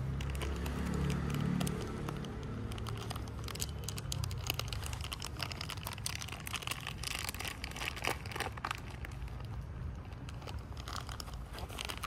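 Plastic food packet crinkling and rustling as it is handled and opened, an irregular run of sharp crackles. A low hum sounds underneath during the first two seconds.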